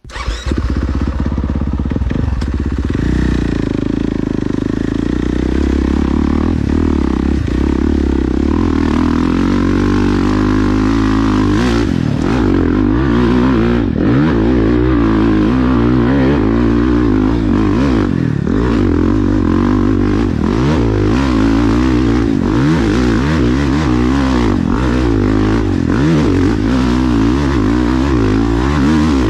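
Dirt bike engine running hard on a hill climb, its revs rising and falling over and over as the throttle is worked, with scattered knocks from the bike over rough ground.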